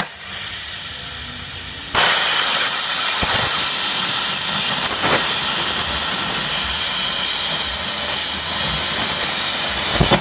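80 A plasma cutter with a B80 torch, running on single-phase power, cutting 8 mm steel plate: a steady, loud hiss of compressed air and cutting arc. It is softer for the first two seconds, then steps up sharply in loudness and holds steady.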